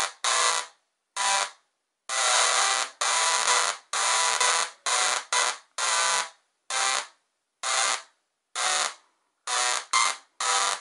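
Small double-resonant solid-state Tesla coil (DRSSTC) firing, its sparks giving a loud electrical buzz. The buzz cuts in and out in about a dozen short bursts of uneven length as the coil is switched on and off.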